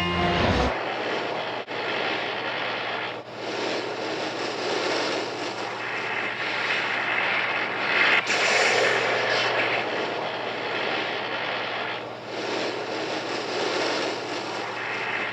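Monster-movie energy beam sound effect: a continuous rushing noise over a steady low hum, swelling twice, around the middle and again near the end.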